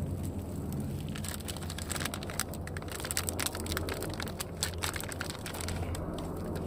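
Wood campfire crackling, with many sharp pops coming thick from about a second in, over a low steady rumble.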